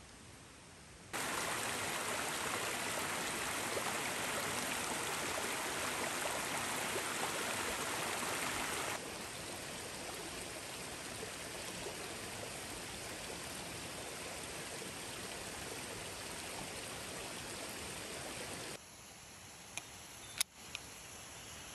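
Mountain stream rushing steadily, in two edited stretches: louder for about eight seconds, then softer for about ten. Each stretch starts and stops abruptly. A couple of sharp clicks come near the end.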